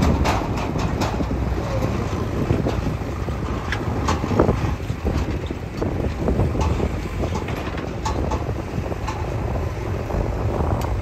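Heavy diesel machinery running steadily, with scattered knocks and clanks over the low engine rumble.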